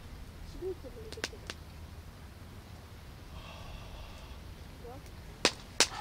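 Wood fire crackling: a couple of small sharp pops a little over a second in and two loud pops close together near the end.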